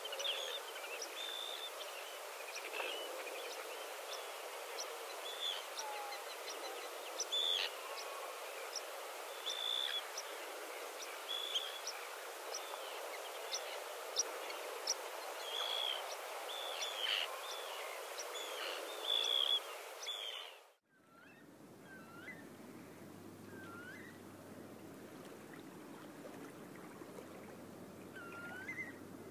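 Many short bird chirps over a steady hiss. About 21 seconds in it cuts off abruptly to a quieter recording of repeated rising chirps with a faint low hum beneath.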